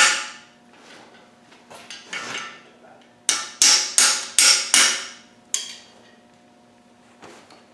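A hammer driving a new steel frost (core) plug into the back of a 200Tdi diesel engine block. There are a few light taps about two seconds in, then a quick run of six sharp, ringing metal blows about two and a half a second, before it goes quiet.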